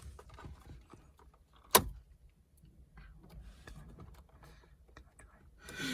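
Faint handling rattles and clicks from work on a car's dashboard parts, with one sharp click or knock a little under two seconds in.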